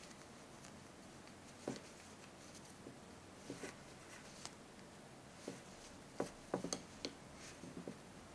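Faint, scattered light clicks and taps of wooden knitting needles working wool yarn as stitches are purled by hand, with a small flurry of clicks about six to seven seconds in.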